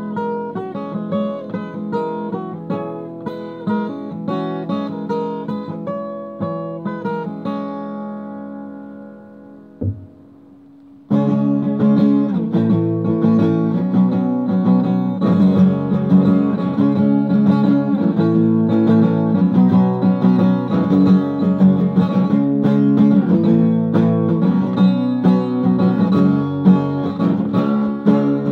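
Acoustic guitar being played: picked notes that fade away about eight seconds in, a brief knock near ten seconds, then after a short pause the playing starts again, louder and denser.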